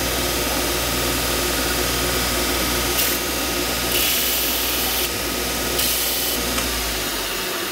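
A 2-inch belt grinder running steadily, with rebar pressed against the moving belt in three short grinding passes, about three, four and six seconds in, to spark-test the steel. The motor's low hum drops off near the end.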